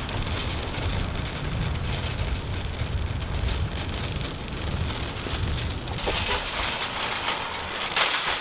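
Wire shopping cart rolling across an asphalt parking lot, its wheels and frame rattling in a steady rumble. It turns brighter about six seconds in, and a single sharp, loud metal clatter comes about eight seconds in.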